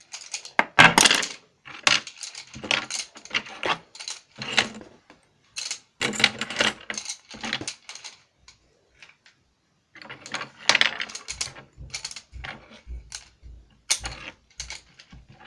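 Wooden coloured pencils clicking and clattering against each other as a handful is sorted through, in irregular bursts with a short pause just past halfway and some dull knocks after it.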